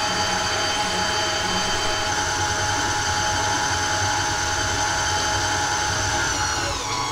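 KitchenAid stand mixer's electric motor running with a steady whine as the paddle beats flour into a butter, sugar and egg mixture. The whine drops in pitch near the end.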